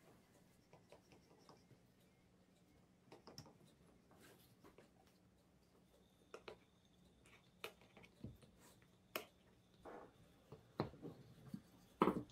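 Scattered light taps and clicks of hands and utensils at work during baklava making, the loudest cluster near the end.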